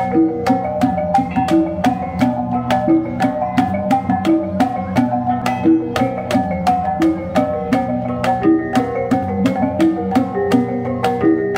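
Bisaya gong ensemble playing live: a kulintangan, a row of small bossed gongs, rings out a short repeating melody over a steady beat of about three strikes a second from the barrel drum and hanging gongs.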